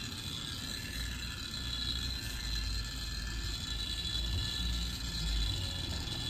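Industrial hose-fed steam iron being worked over fabric on a pressing table: a low, uneven rumble with a faint steady high whine.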